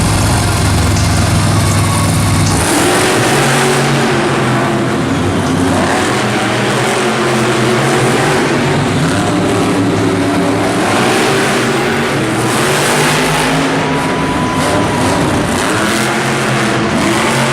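Monster truck engine revving: a steady low drone for the first couple of seconds, then the engine note rises and falls repeatedly over a loud background noise.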